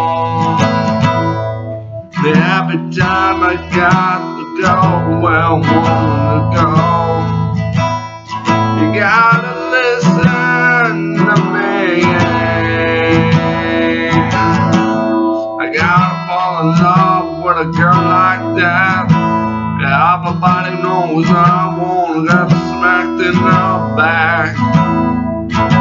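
A man singing to his own strummed acoustic guitar. The voice comes in about two seconds in and holds one long note near the middle.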